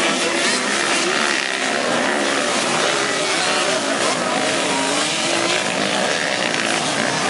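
Several motocross bikes racing together, their engines revving up and down in overlapping, wavering pitches.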